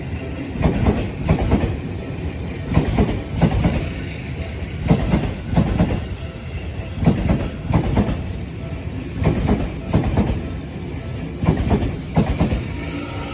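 Seibu 30000-series electric commuter train passing through a level crossing, its wheels clicking over the rail joints in a steady run of paired thumps about once a second over a continuous rumble.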